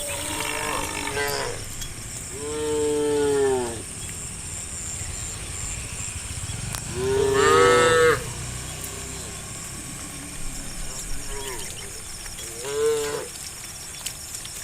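Cows mooing: a call trails off at the start, then come three separate moos, the second and loudest about halfway through and a shorter one near the end.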